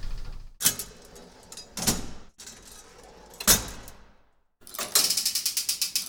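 Elevator door and car mechanism: three sharp clunks a second or so apart, then, after a short break, a fast ticking rattle of about ten clicks a second.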